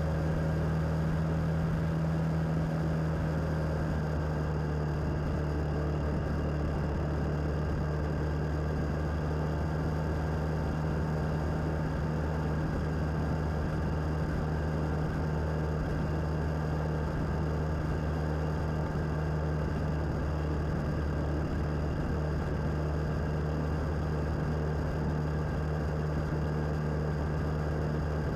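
Suzuki DL650's V-twin engine running at a steady cruising speed, heard from the moving motorcycle, with a constant rush of wind and road noise.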